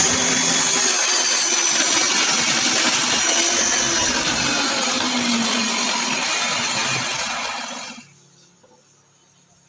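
Table saw running: a loud, steady hiss with a motor hum and a high whine, stopping abruptly about eight seconds in.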